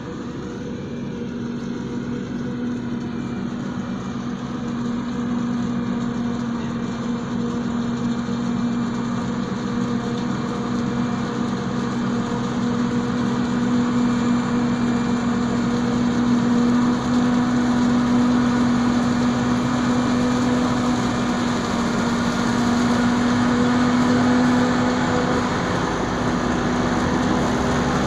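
New Holland FX58 self-propelled forage harvester chopping maize, with a tractor pulling the trailer alongside: a steady engine and machinery drone with a constant hum, growing steadily louder as the machines come closer.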